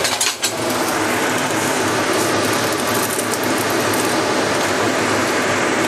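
Water at a full boil in a wok over a gas flame, a steady bubbling hiss, while choy sum blanches in it. A few clicks of metal tongs against the wok come in the first second and again midway.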